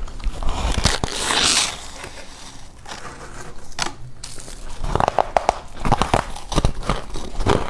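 Crunching and chewing of deep-freezer frost ice, close up: a crackling, crinkling rustle in the first second and a half, then quieter, then a run of crisp crunches several a second near the end.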